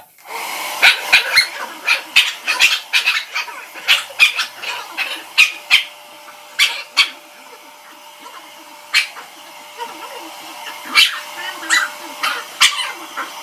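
A small dog, a Shih Tzu, yapping repeatedly in short, sharp, high barks that come in irregular clusters, over a steady background hiss.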